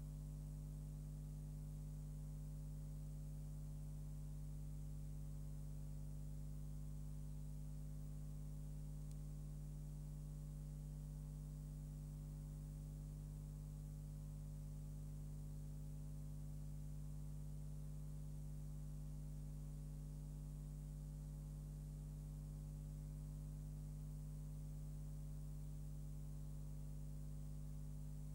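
Steady low electrical mains hum with a faint hiss behind it, unchanging, with no other sound.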